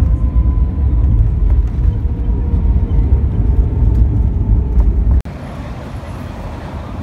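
Jet airliner's landing rollout heard from the cabin: a loud low rumble of wheels and engines on the runway, with a faint whine slowly falling in pitch. About five seconds in it cuts abruptly to quieter outdoor street noise.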